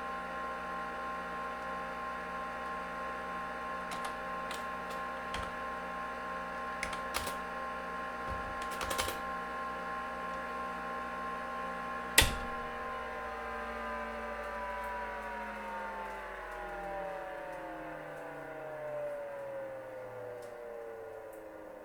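IBM PC XT Model 286 running with a steady whine from its hard disk drive and cooling fan, with a few light clicks. About twelve seconds in a sharp click sounds, and the whine then slowly falls in pitch as the drive and fan spin down after power-off.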